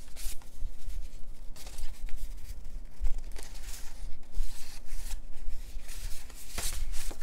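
Small printed photos and paper being handled and sorted through by hand on a desk: irregular rustles, scrapes and soft taps, a few louder ones near the end.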